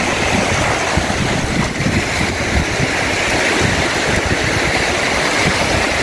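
Wind buffeting the microphone in gusts, over a steady wash of waves breaking on the shore.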